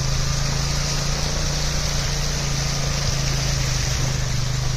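Motorcycle engine running steadily at low speed as the bike rides through shallow floodwater, with the steady hiss of water splashing up from the front wheel.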